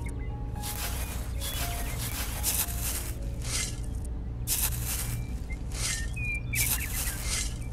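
Small hand trowel scraping and scooping sand, a short rough scrape about once a second, over a low steady hum. A short chirp sounds about six seconds in.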